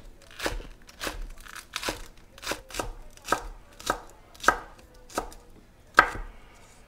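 Chef's knife chopping green onions on a wooden cutting board: a steady run of about a dozen sharp knocks, a little under two a second, the loudest near the end.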